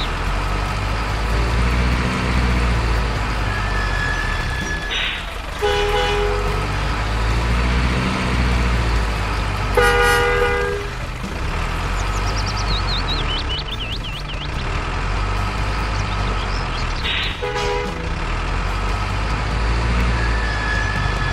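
Heavy truck engine sound running steadily under RC dump trucks, with a truck horn sounding three times: short toots about a quarter and three quarters of the way through and a longer, louder blast about halfway.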